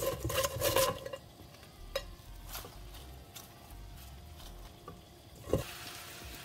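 Handfuls of shredded raw cabbage rustling and clattering into a nonstick frying pan, loudest in the first second, over a light sizzle from onions frying underneath; about five and a half seconds in, a glass pan lid is set down with a single knock.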